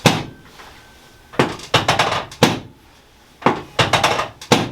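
Tok sen wooden mallet tapping a wooden wedge held against the body: one sharp knock, then quick runs of several sharp taps in about four groups.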